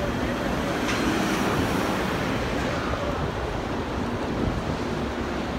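Sandstorm wind rushing and buffeting the microphone: a steady noise with a constant low, uneven rumble.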